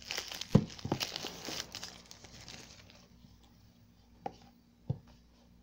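Clear plastic wrapping being torn and crinkled off a cardboard box: dense crackling with a sharp knock about half a second in, easing off after about three seconds. A few single taps follow as the unwrapped box is handled.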